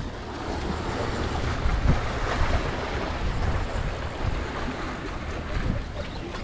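Wind buffeting the microphone in irregular low gusts, over the steady wash of sea waves.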